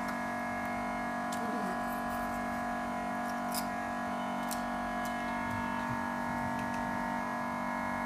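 Steady electric hum of a vacuum LCD separator machine running, with its vacuum pump holding the screen to the heated plate. A few faint clicks and scrapes come over it.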